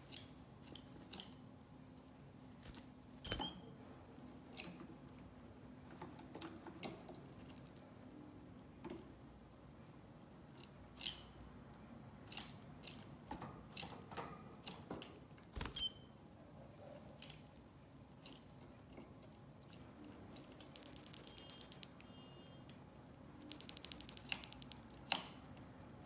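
Scattered clicks and light rustles of a female canary moving in and around her fibre nest cup in a wire cage, with two quick rattling runs of sharp ticks about 21 and 24 seconds in.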